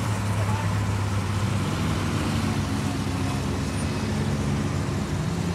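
A slow convoy of classic cars driving past, their engines running with a steady low hum over tyre and road noise.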